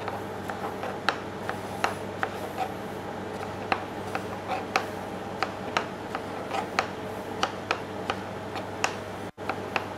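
Small kitchen knife slicing strawberries on a plastic chopping board, the blade tapping the board in sharp irregular clicks, two or three a second, over a steady low hum.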